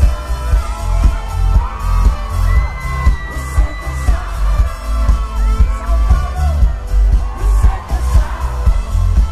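Live pop band music played loud over a festival sound system, heard from the audience: a heavy, steady bass beat under a man's sung vocal and trumpet.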